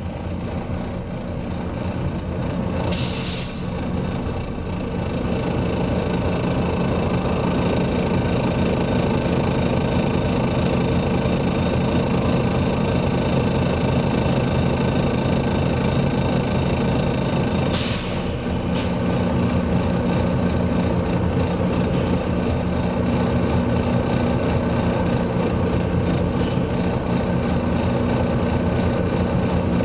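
Volvo B9TL double-decker bus's six-cylinder diesel engine under hard load (thrash), heard from on board, building up over the first few seconds and then running steadily. Short sharp hisses of compressed air from the bus's air system come about three seconds in and about eighteen seconds in, with fainter ones after.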